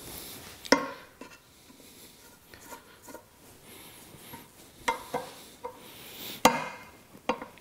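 A screwdriver turning small screws into a lathe taper-attachment rack, with sharp metal clinks and knocks from the tool and parts on a wooden workbench. The two loudest clinks come about a second in and near the end, with soft scraping and ticks between them.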